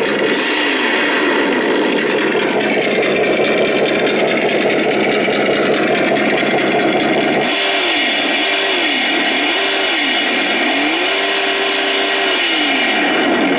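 An RC trophy truck's electronic engine-sound module plays a simulated engine through its speaker. It runs steadily, gives three quick revs about halfway through, then holds a longer rev for about two seconds near the end before dropping back.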